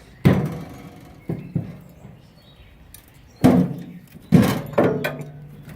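Metal grill firebox being handled and turned over: a series of about six sharp knocks and clanks, some ringing briefly, with the loudest around three and a half and four and a half seconds in.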